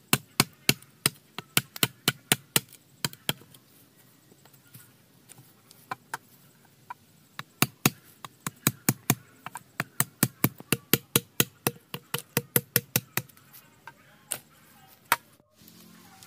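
Quick runs of sharp strikes on bamboo, about three a second, with a pause of a few seconds between runs: blows of a blade or tool while building a bamboo shelter.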